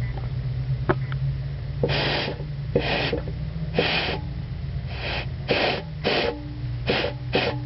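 Short puffs of compressed air from an air blow gun fed into the turbo wastegate actuator line of a Honda AquaTrax F-12X. They start about a second apart and come faster, about three a second, near the end. A steady hum joins about six seconds in.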